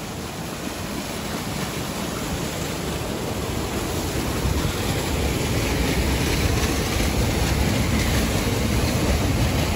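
Steady rush of a mountain waterfall and stream, growing gradually louder.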